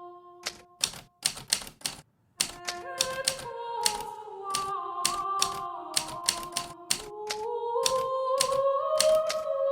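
Hermes Baby portable typewriter keys striking in quick, irregular runs, with a brief pause about two seconds in.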